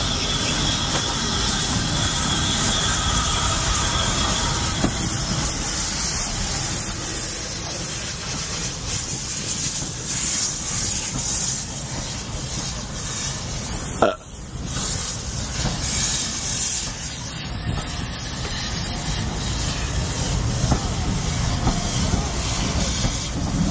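Steam tank locomotive and its vintage wooden carriages rolling slowly past: a steady rumble of wheels on rails with the hiss of steam, and a thin high squeal in the first few seconds.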